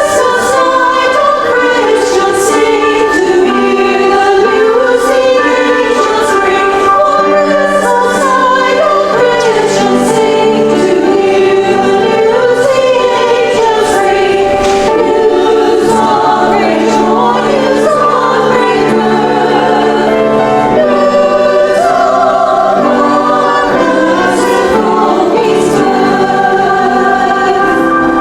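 A choir singing Advent music, continuous throughout.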